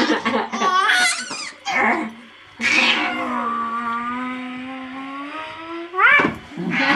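Wordless playful vocal sounds: a few quick squeals, then one long drawn-out wailing cry of about three seconds, and a short rising squeal near the end.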